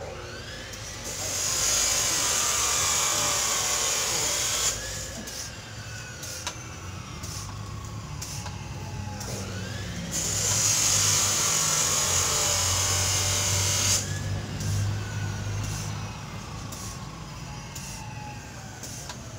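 Three-stage PCP hand pump being stroked to fill a tank with air, with two long hisses of air, each a few seconds long and cutting off suddenly, and scattered clicks between them.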